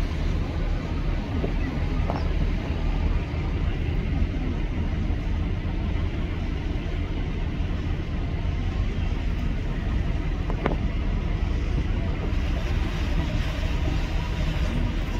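Heavy diesel machinery running steadily with a low rumble, with a couple of brief knocks.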